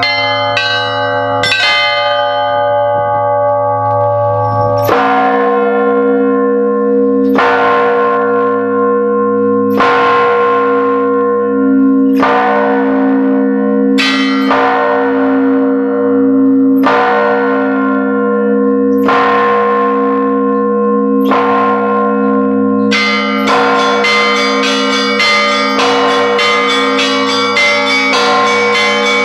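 Large bells ringing: a few strokes close together at first, then single strokes about every two and a half seconds, each ringing on over a steady low hum, then many strokes in quick succession near the end.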